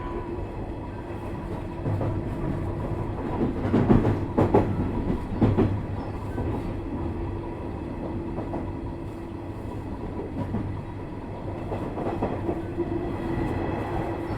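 Interior running sound of a Nishitetsu 3000 series electric train: a steady rumble and hum from wheels and traction equipment, with a cluster of louder wheel knocks over rail joints or points about four to six seconds in, as the train approaches a station.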